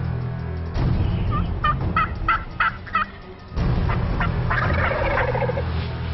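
Wild turkeys calling: a run of short calls about three a second, then a rattling gobble near the middle.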